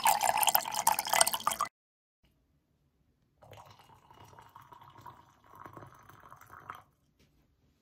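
A loud, bright sound effect for the first second and a half, then a pause. Then water is poured faintly from an electric kettle into a stainless steel pitcher for about three seconds.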